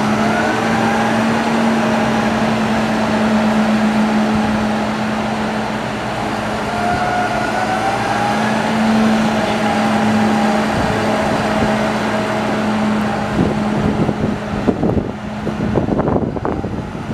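John Deere 6190R tractor's six-cylinder diesel engine running as the tractor drives by on gravel: a steady low hum with a fainter whine above it that slowly rises and falls. Near the end, wind buffets the microphone in gusts.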